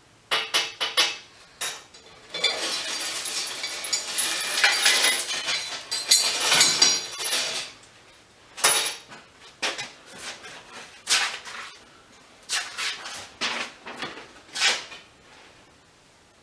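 Loose metal parts and hardware of a spring compressor kit clinking and clattering on a workbench as they are handled: a few sharp clicks, a dense run of rattling in the middle, then separate clanks toward the end.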